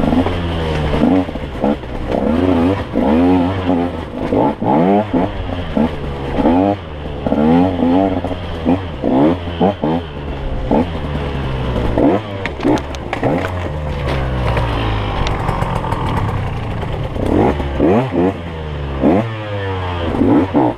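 Dirt bike engine revving up and down again and again as the rider works the throttle on a trail, with a stretch of clattering about twelve seconds in.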